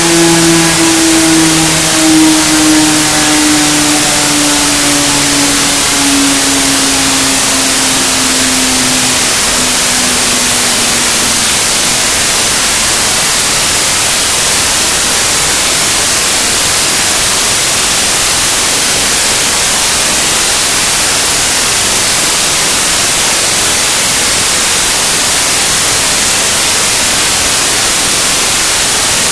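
Loud, harsh static hiss. Over it, a pitched drone slowly falls in pitch and fades out after about ten seconds, leaving only the static.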